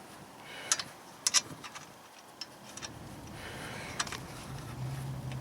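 A few light metallic clicks and ticks as a nut is handled and started by hand onto an outer tie rod end's threaded stud. A low steady hum comes in about halfway through.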